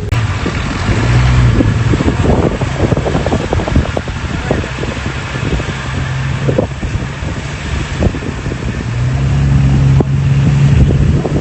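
Excavator's diesel engine working under load, growing louder about a second in and again near the end, with irregular knocks and clatter from the digging.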